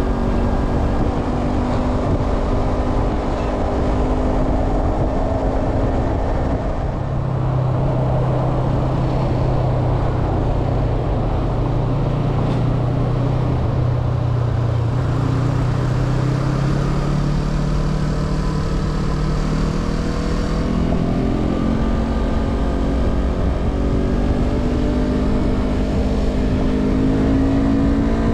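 Sport motorcycle engine running at expressway speed over steady wind and road noise. Its note drops about a quarter of the way through, holds low for a while, then climbs again in the last third.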